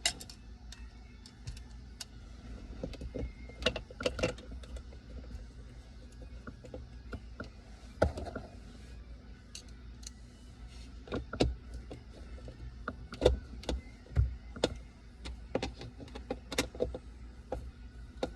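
Irregular small clicks and taps of a Phillips screwdriver and plastic parts as a new center console lid latch is screwed into the plastic lid, over a low steady hum.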